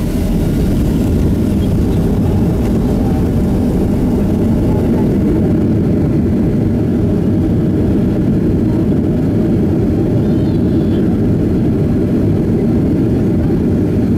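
Cabin noise of a Boeing 737-300 slowing on the runway after touchdown, ground spoilers raised: a loud, steady low rumble from its CFM56 engines and the rolling airframe. The thinner upper hiss eases off about five seconds in as the jet slows.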